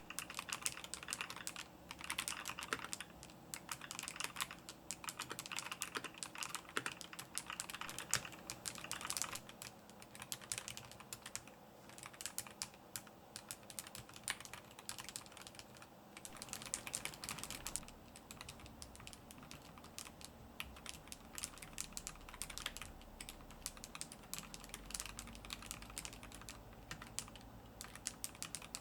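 Continuous typing on a YUNZII X75 mechanical keyboard with Jellyfish switches: a fast, irregular run of keystroke clicks.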